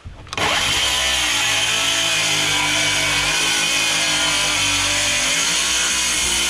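Corded electric saw cutting through wood, running steadily at full speed; it starts just after the beginning.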